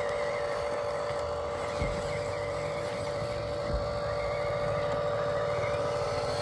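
Radio-controlled toy excavator running: a steady whine from its motors, with two short knocks about two and four seconds in.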